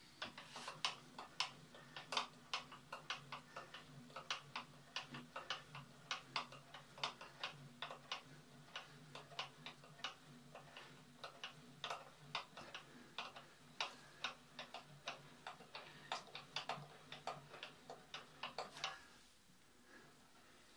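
Benchtop milling machine's head being cranked up its column: irregular light clicking from the crank and gearing, several clicks a second over a faint low hum, stopping a little before the end.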